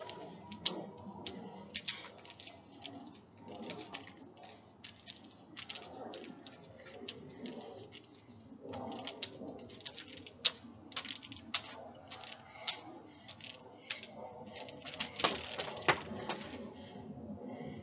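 LED hula hoop clacking and tapping against hands and body while hooping: irregular sharp clicks, a few louder knocks, over a low background hum.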